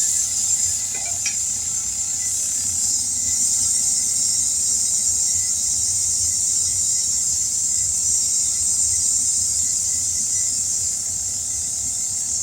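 Compressed air hissing steadily into a new 18-inch tire on its rim while seating the bead, with a low rumble underneath. The bead has not yet sealed on the back side, so air is escaping and the tire is not taking pressure.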